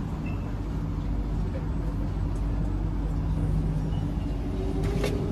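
Steady low hum of a Kawasaki C151A metro train standing at a station platform, mixed with the bustle of passengers moving past. A few sharp clicks come near the end.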